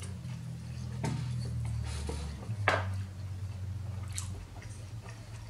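Two people biting into and chewing soft steak-and-cheese rolls in bread buns: wet, squishy chewing with a few short clicks, over a low hum.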